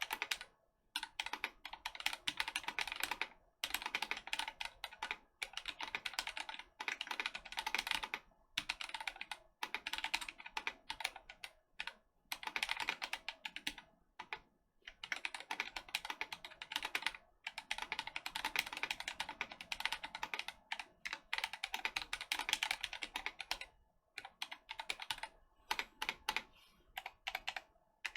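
Fast typing on a mechanical keyboard with Gazzew Boba U4T tactile switches, in an aluminum case with a steel plate and no case foam. The keystrokes come in quick bursts of a second or two, broken by short pauses.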